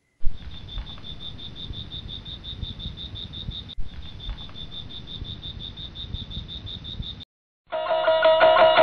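A night-calling animal's high, rapid pulsing call, about nine pulses a second, steady over a low background rumble, with a sharp knock at the start. It stops near the end, and loud plucked-string music comes in.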